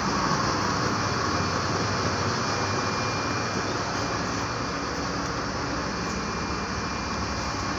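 Coach diesel engine idling steadily, a low even rumble with a faint high whine over it.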